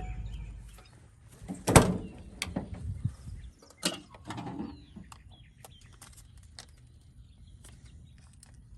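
A sharp click about two seconds in, followed by a few lighter clicks and taps over the next couple of seconds: a Sprinter's fuel filler door being swung shut and handled against its new rubbery sealant bumpers and magnets.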